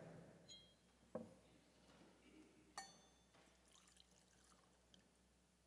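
Faint handling of glass cruets at an altar: liquid poured from a cruet into a chalice, with a few light clinks of glass, the clearest a short ringing clink about three seconds in.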